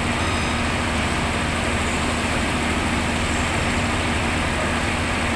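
Heavy diesel engine running steadily at a constant speed, with a continuous low hum and no change in pitch.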